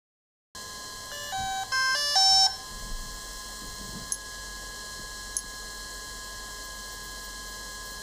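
A quick run of electronic beeps stepping up and down in pitch, then a faint steady electronic whine with a few small clicks: the Phantom 4 Pro drone system restarting as its firmware update completes.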